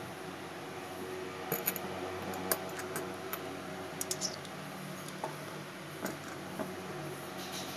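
Light clicks and taps of miniature ceramic cups and their lids being picked up, opened and set down on a small ceramic dish: a handful of separate ticks over a faint steady hum.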